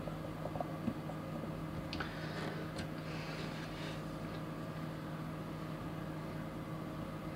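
Steady electrical background hum made of several fixed tones, with a couple of faint clicks about two to three seconds in as the small model car and the setup are handled.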